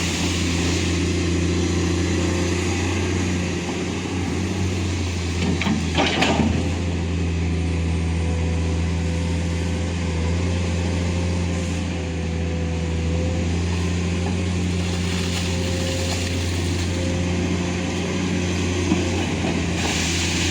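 Heavy diesel engine of an excavator running steadily with a deep hum, with a brief noisy burst about six seconds in.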